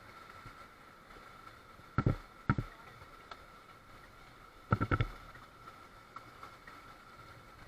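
A few short thumps over a faint steady hiss with a thin steady tone: one about two seconds in, another half a second later, and a quick cluster a little before five seconds.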